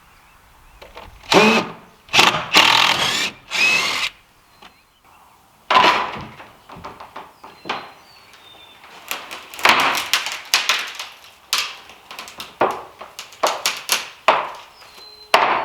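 Power drill running in short bursts, several over the first few seconds, then a run of short sharp knocks and brief bursts in the second half.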